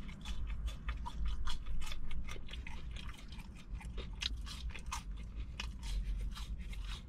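Close-miked chewing of french fries: a rapid, irregular run of small crunches and mouth clicks, a little louder in the first couple of seconds.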